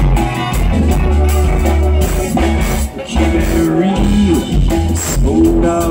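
A live band playing rock music on electric guitars, drums, keyboards and saxophone.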